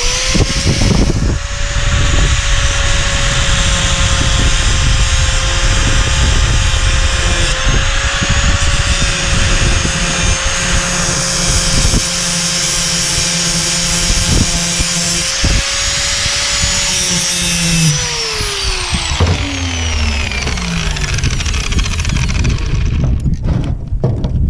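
Angle grinder spinning up, then running steadily while cutting through steel for about 18 seconds, with a few sharp knocks. It then cuts out and winds down in a long falling whine. This is a link being cut from a manure spreader's floor-conveyor chain to shorten it.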